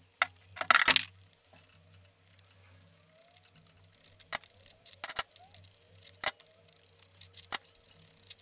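Sharp metal clinks and taps of a socket wrench and loosened cylinder head bolts on a VW 1.6 diesel engine as the head bolts are taken out. A quick cluster of clinks comes about a second in, then single clinks every second or so.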